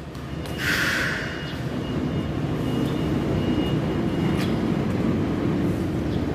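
Roll forming machine for rib-type roofing sheets running with a steady mechanical rumble, with a short hiss about a second in and a sharp click near the end.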